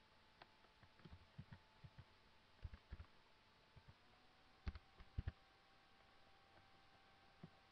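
Faint computer keyboard keystrokes typing a word, irregular single clicks with a soft thud each. The three loudest strokes come a little past the middle, over a faint steady whine.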